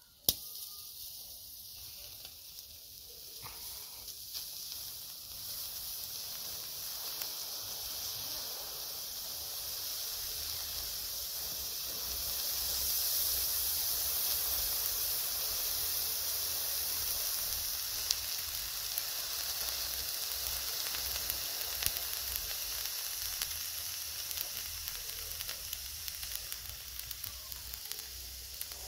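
A hot blade sizzling as it sinks through a tomato: a steady hiss with small crackles as the tomato's juice boils off against the metal, a little louder towards the middle.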